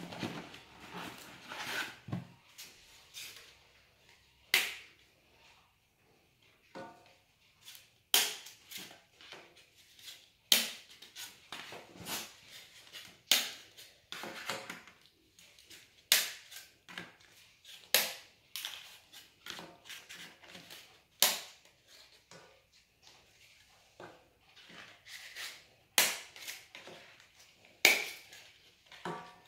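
Kitchen handling noises while lasagne is layered in a pot: a string of sharp clicks and knocks, about one every one to two seconds, with some short scraping.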